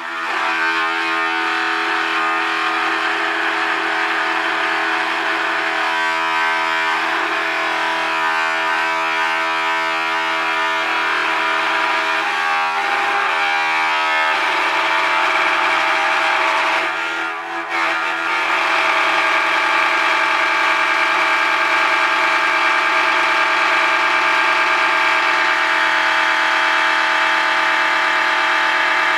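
Vibrating children's toothbrush motor buzzing steadily inside an aluminium foil takeaway tray floating on water, the thin foil carrying the buzz. The level dips briefly about seventeen seconds in, then the buzz runs on evenly.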